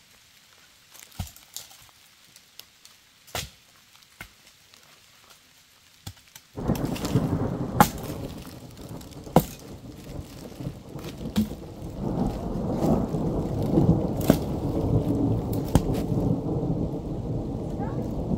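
Dry tree branches snapping with sharp cracks as they are broken off by hand. About six and a half seconds in, a loud low rumble of thunder starts suddenly and keeps rolling, with more snaps over it.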